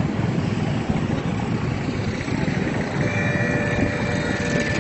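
Steady rumbling rush of a river in flood, wide brown floodwater running high. A faint thin tone joins it about three seconds in.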